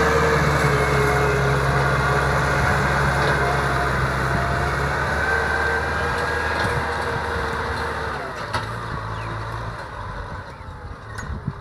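Kubota tractor's diesel engine running steadily under ploughing load, then dying away over the last few seconds.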